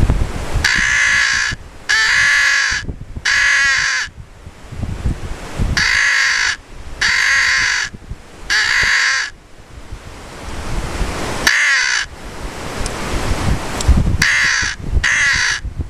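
Lohman crow call blown in loud caws imitating an American crow, mostly in sets of three with a single caw midway. Wind rumbles on the microphone between the caws.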